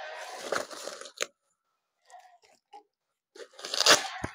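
Bubble wrap crinkling and rustling as it is handled and pulled off a cardboard box, in two spells, the louder one near the end.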